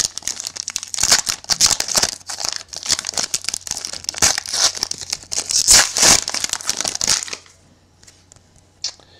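Foil wrapper of a 2011 Playoff Contenders football card pack being torn open and handled, crinkling and ripping for about seven seconds, then stopping.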